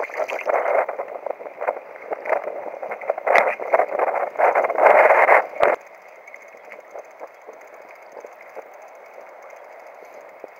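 Wind buffeting the microphone and choppy sea splashing against a fishing kayak: a loud, gusty rush with scattered knocks, which drops suddenly to a quieter steady rush a little under six seconds in.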